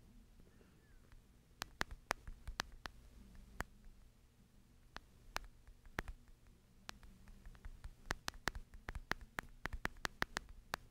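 Faint, irregular sharp clicks, sparse at first and coming thick and fast from about eight seconds in, over a low steady hum.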